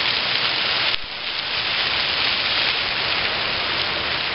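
Ground-level plaza fountain jets spraying up and splashing back onto wet paving: a loud, steady hiss of rushing water, with a brief sudden dip about a second in.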